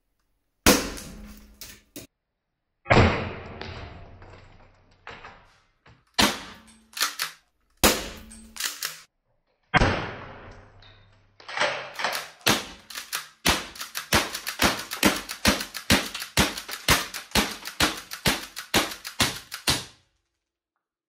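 T4E HDX 68 CO2 launcher firing, each shot a sharp pop, with hits on a wooden table target. A handful of separate shots, some with a long ringing tail, are followed by a fast, regular string of about two to three shots a second that stops suddenly near the end.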